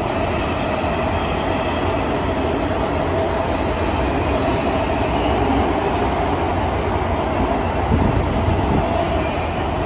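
Toyo Rapid Railway 2000 series commuter train running, heard from inside the passenger car: a steady rumble of wheels on rails with a steady hum.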